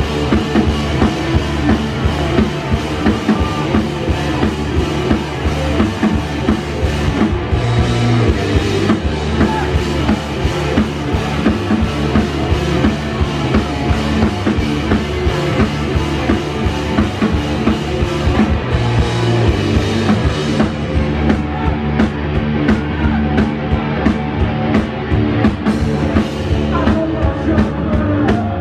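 Rock band playing live: electric guitars, bass and a drum kit keeping a steady driving beat.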